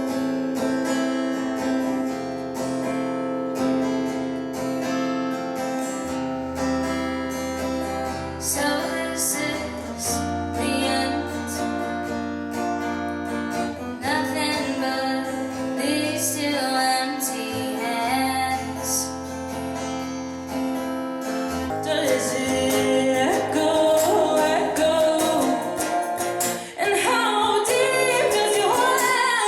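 A live song: acoustic guitar strummed under singing voices. It grows louder and fuller about twenty-two seconds in.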